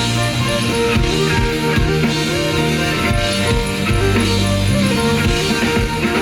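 Instrumental passage of a rock song with no singing: a drum kit with bass drum keeping the beat under guitar and sustained held notes.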